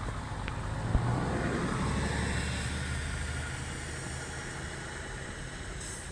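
A car driving past, its noise swelling and then slowly fading over a few seconds, with a single thump about a second in.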